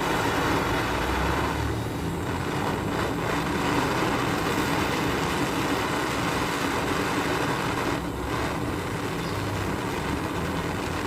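Butane torch flame hissing steadily as it heats a pull-starter part before bending.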